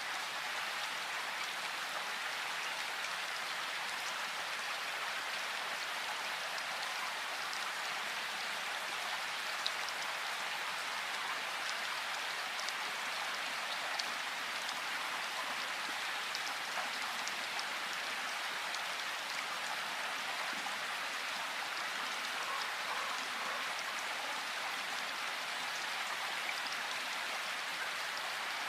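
Steady rain falling in a forest, an even hiss with scattered ticks of individual drops.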